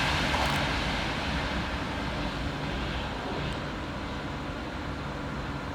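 Class 390 Pendolino electric train running through the station, its rumble and rush of noise fading steadily as it moves away.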